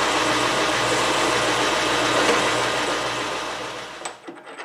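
Metal lathe running, its spindle and gear train making a steady mechanical whir while an arbor is being turned down in the chuck. The noise fades and stops near the end, followed by one sharp metallic click as the turned arbor is tried in the spindle bore.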